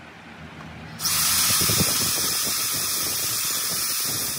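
Hand-held power drill starting suddenly about a second in and running steadily at speed, working a bit into the Suzuki three-cylinder engine head.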